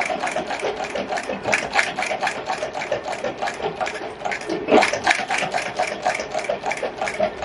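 A small machine running with an even, rapid clatter of about five clicks a second over a steady hum.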